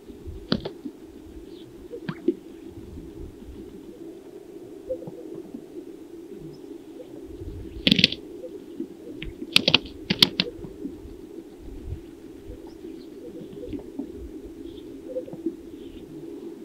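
Greater sage-grouse males displaying on a lek: scattered sharp pops from the strutting males' air sacs, then a cluster of louder slaps about eight to ten seconds in as two males fight, striking with their wings. A steady low hum runs beneath.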